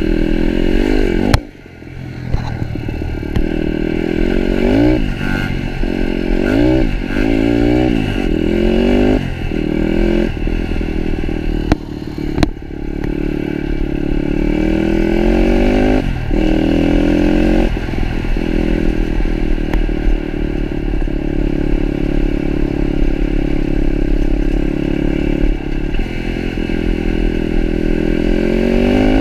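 Pitster Pro 160cc pit bike's single-cylinder four-stroke engine under way. Over the first ten seconds or so it pulls up through the gears in repeated rising sweeps, then holds a steady cruise. A sharp knock about a second and a half in, with the engine briefly dropping away.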